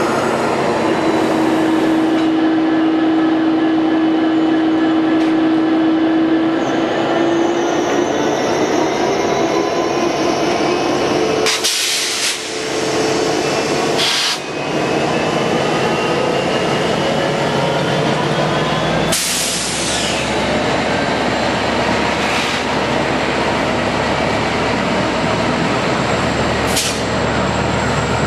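An F59PHI diesel-electric locomotive runs close by, a loud steady engine drone with a hum. The sound is interrupted by brief breaks about 12 and 14 seconds in, and a deeper rumble comes in after about 19 seconds.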